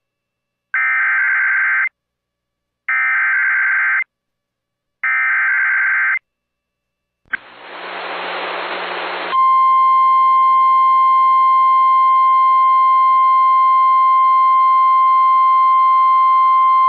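NOAA Weather Radio warning alert: three short screeching bursts of SAME digital header data, then about two seconds of static hiss, then the steady 1050 Hz warning alarm tone. Together they signal the start of a severe thunderstorm warning broadcast.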